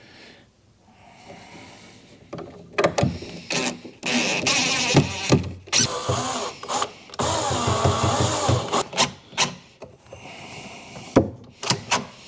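Cordless DeWalt impact driver running screws into a wooden cabinet frame, in two bursts of a couple of seconds each, with clicks and knocks of tool handling around them.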